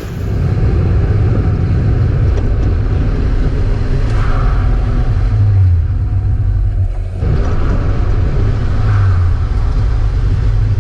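Mazda Miata's four-cylinder engine running hard on track, rising in pitch as it accelerates, with a short break about seven seconds in before it pulls again.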